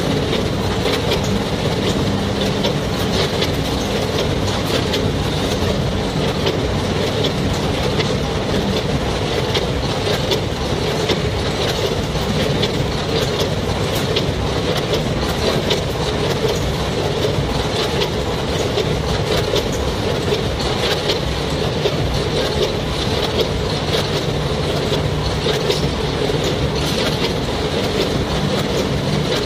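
Automatic snack weighing and packaging line running: conveyors and a multihead weigher hum steadily, while puffed snack sticks pour into the weigher's hopper with a dense rattle of small clicks.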